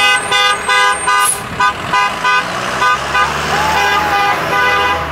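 School bus horns honking in a rapid run of short toots, about two to three a second, with a low bus engine rumble coming in about three seconds in.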